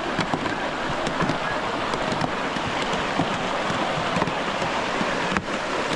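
Fast, shallow river water rushing and splashing over rocks, close to the microphone, with small scattered splashes.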